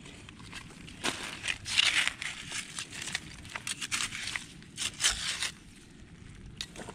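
A hand trowel digging into gravelly beach mud among barnacles and mussel shells, with crunching and scraping in a run of uneven strokes from about a second in until about five and a half seconds in.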